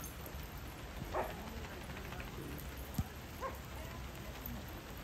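Steady rain falling, with brief yips from dogs playing, about a second in and again around three and a half seconds in, and a single sharp tap about three seconds in.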